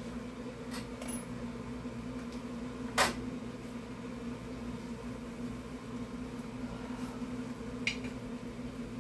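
A steady mechanical hum runs throughout, with one sharp knock about three seconds in and a lighter clink near the end as the lid of the nonstick frying pan is handled.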